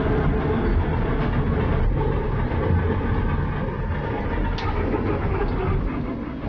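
Fairground ride car rumbling and clattering along its track, with a few sharp clicks from the rails.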